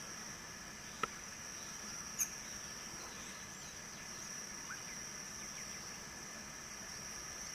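Faint natural ambience: a steady, high insect drone with a few faint bird chirps. Two brief sharp sounds stand out, about one and two seconds in.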